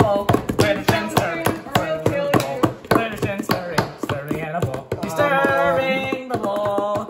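A voice singing a short tune about someone stirring in a bowl, with long held notes near the end, over a steady clicking beat.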